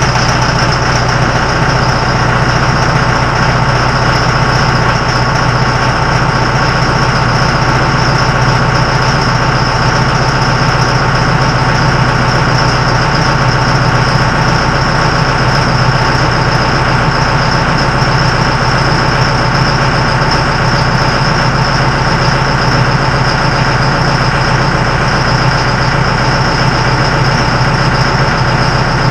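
John Deere diesel tractor engine idling steadily, running cold after a winter start from sitting for months.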